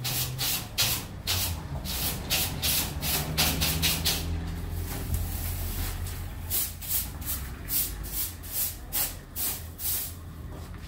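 Straw hand brush swept in quick strokes across the slatted stainless-steel tray of a bread-baking machine, about three strokes a second. The strokes stop for a couple of seconds partway through, then start again. A steady low hum runs underneath.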